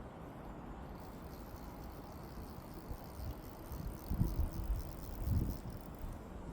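Low wind rumble on the microphone, with two dull low bumps about four and five seconds in.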